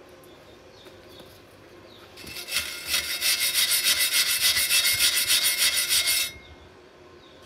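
Hand wire brush scrubbing back and forth over a fresh weld bead joining a steel rod to thin galvanized steel, in quick rhythmic strokes of about six a second. It starts about two seconds in and stops about six seconds in.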